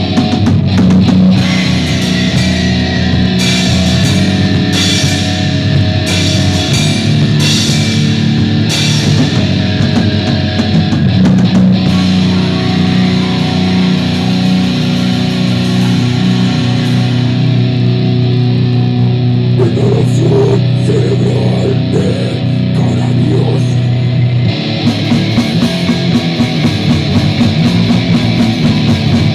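Heavy, distorted extreme-metal music of the goregrind kind, with low down-tuned electric guitar and a drum kit.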